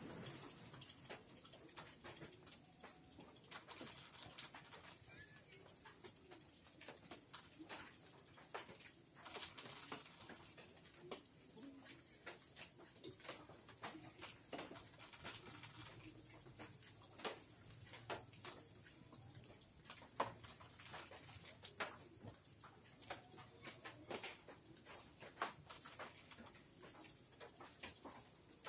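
Faint, scattered soft clicks and rustles of a dog mouthing and licking a kitten in play.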